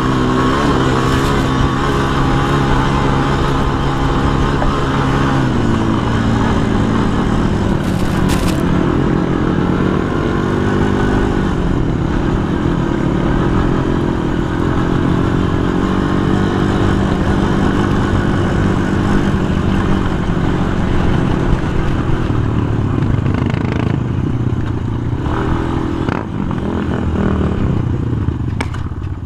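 Yamaha sport quad's engine running hard at high revs across sand, its pitch stepping down about five seconds in and easing off near the end as it slows. A brief clatter sounds about eight seconds in.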